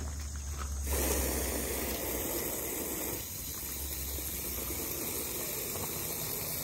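Water from a garden hose rushing into the tank of a backpack water gun as it is refilled. The rush starts about a second in and eases a little about three seconds in.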